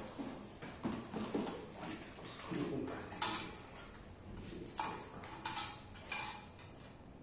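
Handling noise from a hard plastic monitor stand base being turned over in the hands, with soft rustling early on and a few sharp clicks and knocks later.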